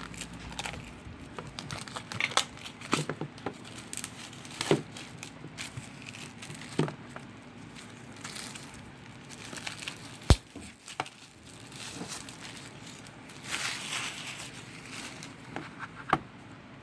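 Packaging on a children's sound book being torn and crinkled open, with scattered crackles and clicks and one sharp knock about ten seconds in.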